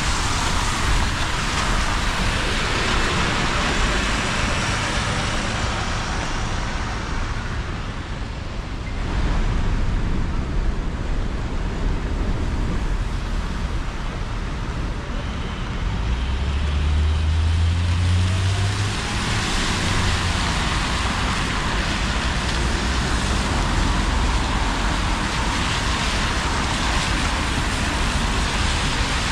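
City traffic on a rain-soaked road: buses and cars passing, their tyres hissing on the wet asphalt, louder during the first seven seconds and again near the end. About sixteen seconds in, a heavy engine's low drone swells and rises for a few seconds.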